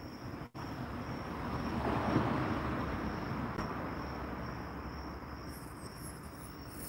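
Night ambience: a steady high cricket trill, with a broad rushing noise that swells about two seconds in and slowly fades away.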